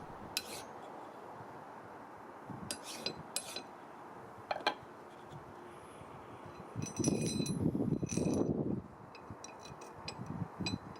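A few light metallic clinks of steel parts, then a steel hand file rasping in a quick run of strokes over the vise's steel shaft about seven seconds in, filing down high spots that were keeping the thrust washer from sliding on.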